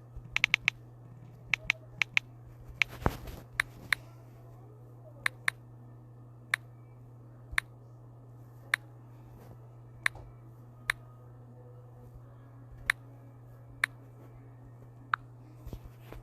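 Sharp, isolated taps or clicks, roughly one a second, with a quick cluster of them near the start and a short rustle about three seconds in, over a steady low hum.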